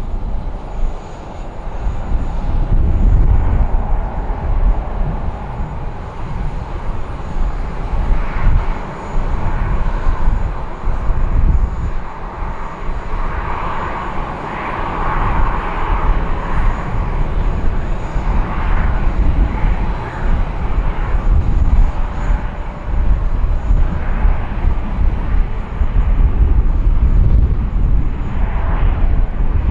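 Boeing 737-800's CFM56-7B turbofan engines running, a deep, steady rumble that rises and falls in loudness.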